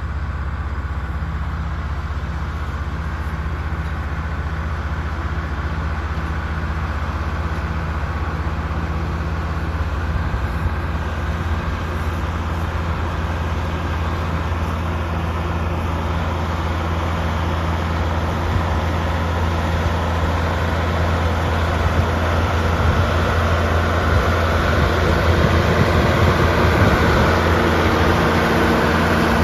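Ford TW-20 tractor's six-cylinder turbo diesel running steadily under load, pulling a round baler that is picking up a windrow. The sound grows slowly louder as the tractor comes closer.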